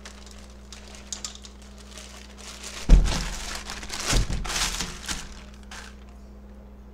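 Thin clear plastic bag crinkling and rustling as hands handle it, loudest from about three to five seconds in, with a couple of dull thumps as it knocks against the counter and the phone.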